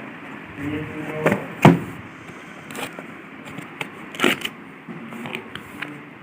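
A cardboard set-top-box package being opened and handled: a few sharp knocks and taps, the loudest about one and a half seconds in and another past the four-second mark.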